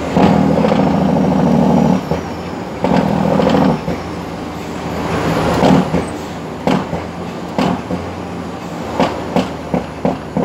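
Heavy truck's diesel engine heard from inside the cab. It comes on loud in bursts that cut in and out abruptly, twice in the first four seconds, then settles to lower steady running with a string of sharp knocks and clicks.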